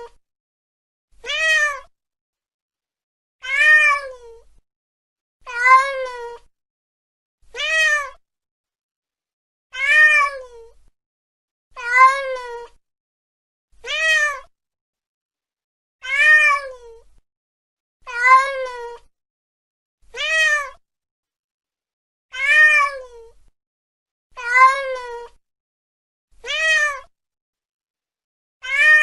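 A domestic cat meowing over and over, about one call every two seconds, each call rising then falling in pitch. The calls are near-identical, with complete silence between them.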